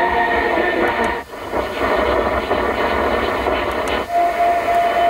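Audi MMI Basic car radio's AM medium-wave reception, tuned upward in steps. Music cuts out about a second in and gives way to hissing static with faint traces of distant stations. A second step near the end brings in a steady whistling tone.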